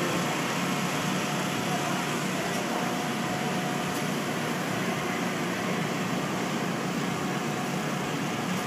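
Steady outdoor background noise at an event: an even hum and hiss that holds level throughout, with no distinct events standing out.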